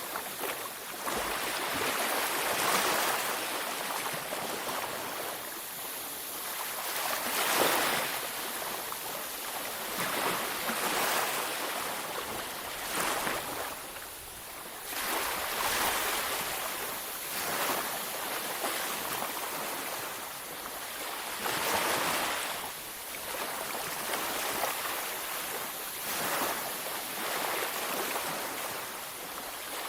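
Ocean waves breaking and washing up a beach, a continuous surf hiss that swells every few seconds as each wave comes in.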